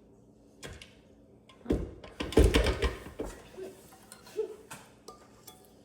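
A few scattered knocks and thumps from things being handled in a kitchen, the loudest about two and a half seconds in.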